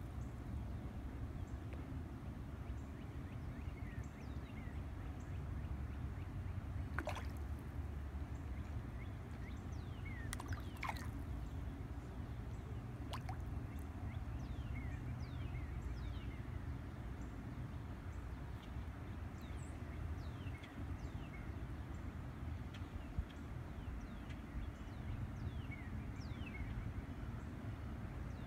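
Quiet outdoor ambience by the water: a steady low rumble under small birds chirping in short, falling notes throughout, with a few sharp clicks or small splashes.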